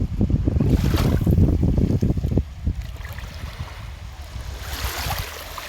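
Seawater washing under strong wind, the gusts buffeting the microphone with a loud low rumble for the first two seconds or so before easing off. Near the end a hissing wash of water swells up.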